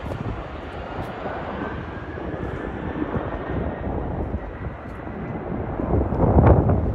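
Turbofan engines of a regional jet on final approach, a steady rushing drone with a faint high whine through the first half. Wind buffets the microphone, loudest near the end.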